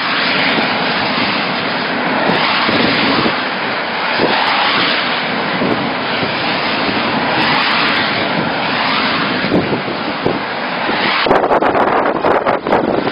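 Typhoon-force wind rushing steadily, buffeting the microphone. About eleven seconds in it turns gustier and choppier.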